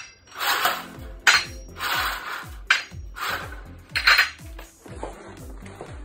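Glass bottles clinking and knocking against each other and a metal display as they are handled: four sharp knocks with a ringing tail, about a second and a half apart, over background music with a repeating bass line.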